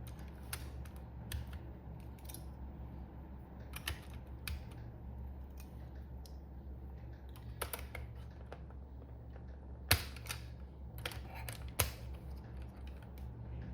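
Scattered sharp plastic clicks and taps from a mechanical keyboard being handled, about a dozen spread out with two louder ones near the end, over a steady low hum.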